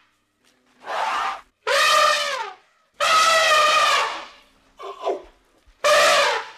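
Elephant trumpeting: a run of about five separate calls, each half a second to a second long, with short gaps between them; the call just past the middle is short and weaker.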